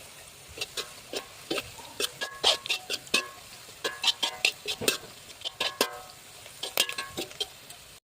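Metal spoon or spatula stirring in a steel pan or bowl, clinking against the side again and again at an irregular pace, each clink ringing briefly.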